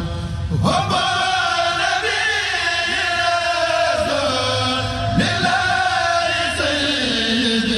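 Mouride kourel of male voices chanting a khassida (devotional poem) a cappella. A high lead voice slides up and holds about a second in and again about five seconds in, over lower sustained voices.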